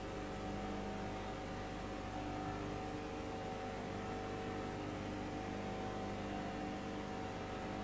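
Steady electronic drone: several held tones over an even hiss, unchanging throughout.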